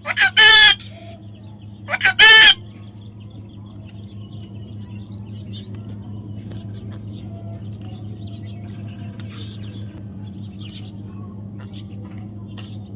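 A parrot gives two loud calls, each about half a second long, one at the start and one about two seconds in. After that there is only a steady low hum with faint scattered chirps.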